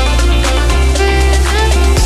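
Music with a heavy bass line and a steady beat.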